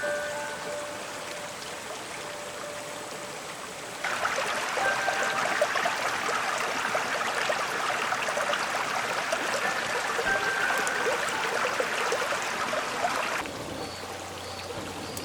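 A shallow clear stream babbling and trickling over rocks. Quieter at first with a few fading chime-like music notes, it gets much louder about four seconds in and drops back abruptly near the end.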